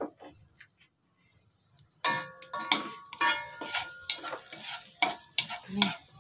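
Wooden spatula stirring and scraping around a pot of melting butter in bacon fat, with the fat sizzling and crackling. It starts suddenly about two seconds in, after near silence.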